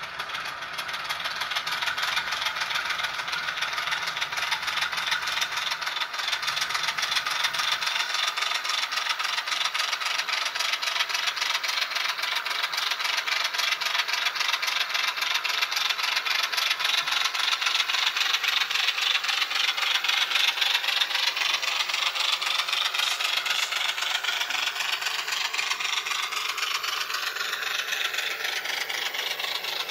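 Recorded diesel switcher engine sound from an ESU LokSound V5 Nano decoder, played through a tiny 8x12 mm sugar-cube speaker in an N scale Baldwin VO-1000 model. It runs steadily with a fast rhythmic chug as the model moves along the track, thin and tinny with almost no low end.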